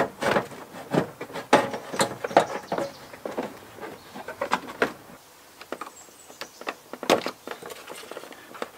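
Irregular plastic clicks, knocks and scraping as a BMW 1 Series E87 headlight unit is worked loose and pulled out of the front end, with a short lull about two-thirds of the way through.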